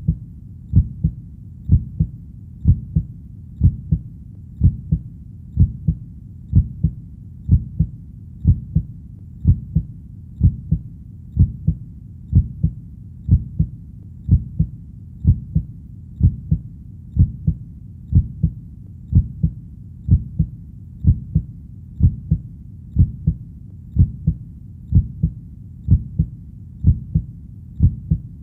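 Steady heartbeat, each beat a low double thump (lub-dub), about one beat a second, over a low background noise between beats.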